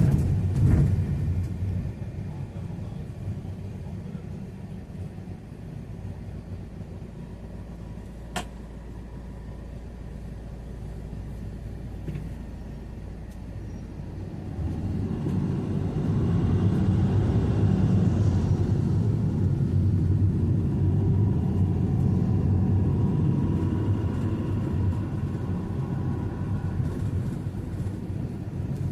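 Steady low rumble of a motor vehicle, growing louder about halfway through, with one sharp click about a third of the way in.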